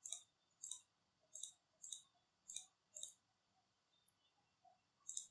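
Faint computer mouse clicks, six spaced about half a second apart and then one more near the end.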